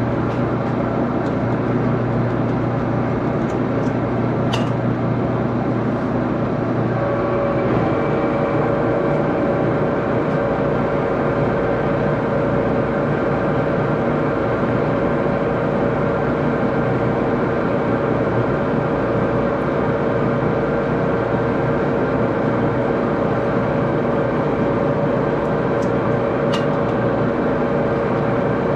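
Axelson engine lathe running steadily with a gear-train whine; a stronger, higher whine joins about seven seconds in.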